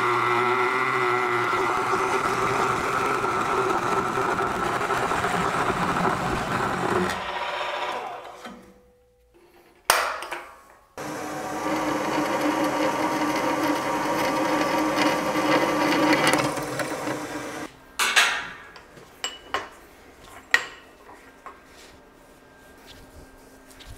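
A milling machine's large circular cutter runs steadily through a steel bar, fading out after about seven seconds. After a short quiet gap with one click, a drill press drills into the steel with a steady whine for about six seconds. A few sharp metal clinks follow as the part is handled in a bench vise.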